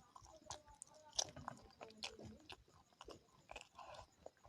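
Close-up eating sounds: a person chewing and biting curry and rice, with irregular wet mouth smacks and small crunchy clicks.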